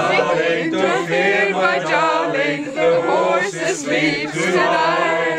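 A small group of men and women singing a song together without accompaniment.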